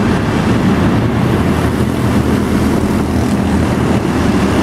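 A pack of small stock-car-style race cars running at racing speed, their engines together making a loud, steady drone as the cars race past.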